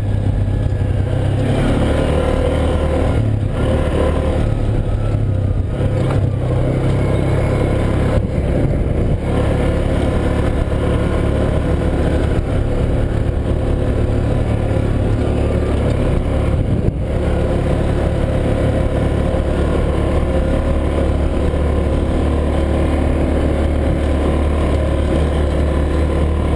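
Yamaha Rhino side-by-side's single-cylinder engine running steadily while driving along a dirt track.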